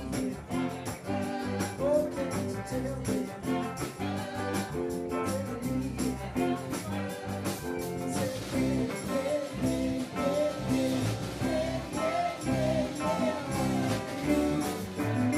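Live band playing an upbeat rock song with guitar and a steady beat.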